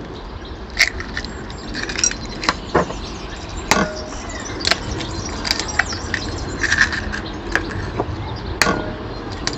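Eggs being cracked on the rim of a ceramic bowl: a series of sharp taps and shell cracks, the two strongest taps leaving the bowl ringing briefly, over a steady low rumble.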